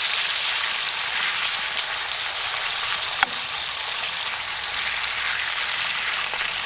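Bacon frying in a pan on a charcoal grill, a steady sizzle, with one sharp click about three seconds in.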